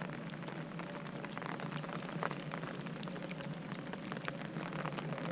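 Rain falling steadily onto a lake: an even hiss with many small, sharp drop ticks.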